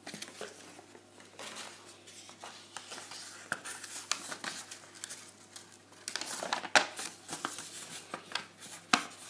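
Folded paper inserts rustling and crinkling as hands unfold them, with many scattered sharp clicks and crackles; the handling gets louder and busier about six seconds in.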